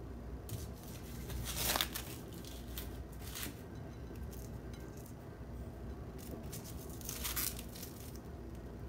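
Plastic film crinkling in a few short crackly bursts: the loudest just under two seconds in, another around three seconds, and a last one near the end.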